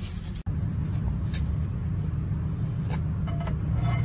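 An engine idling with a steady low drone, with a few light metallic clicks of tools over it.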